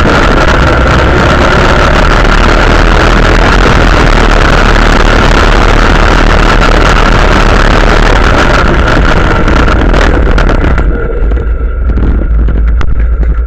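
Quad bike (ATV) engine running loud while riding over sand, with wind rushing over the mounted microphone. About eleven seconds in, the rushing drops away as the quad slows, leaving the engine running.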